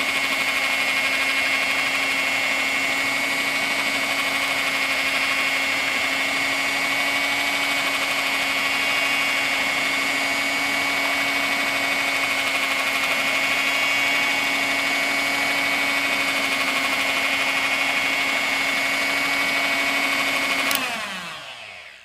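Electric kitchen blender running steadily on its whip setting, a loud, even motor whine. Near the end it is switched off and the motor winds down, its pitch falling as it stops.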